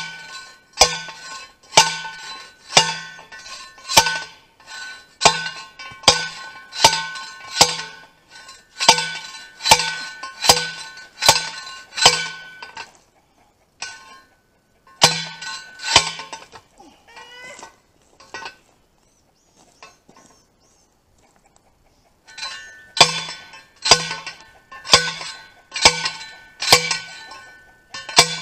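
Manual post driver slamming down onto a steel T-post: sharp metal-on-metal clangs with a ringing tone, about one a second. The clangs stop twice, once briefly and once for several seconds, then start again near the end.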